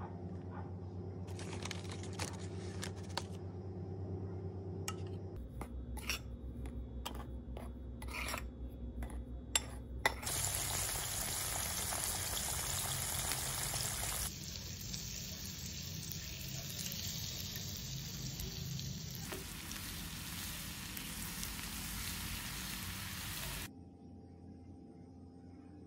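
Spoon scraping and clicking against a bowl as chicken wings are tossed in flour, then chicken wings frying in hot oil with a steady sizzle from about ten seconds in, which drops away near the end.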